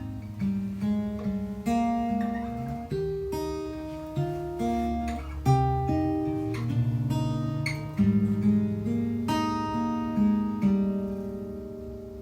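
Acoustic guitar playing a closing instrumental passage of picked notes and strummed chords, fading out near the end.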